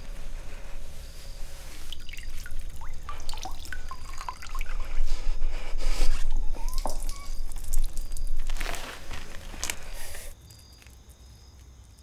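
Water dripping and trickling from a wet cloth being squeezed over a bucket: scattered plinking drops that thicken into short splashes, then stop abruptly about ten seconds in, over a low steady hum.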